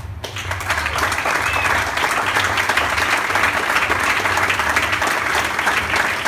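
Audience applauding steadily, a dense crackle of many hands clapping.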